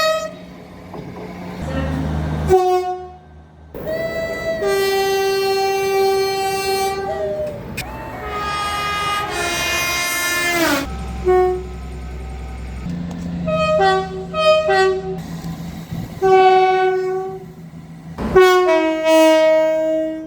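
A run of train horns from several separate recordings. Two-tone blasts step between a high and a low note, one low note is held for about three seconds, and another horn slides down in pitch as it dies away, with a low rumble under some of them.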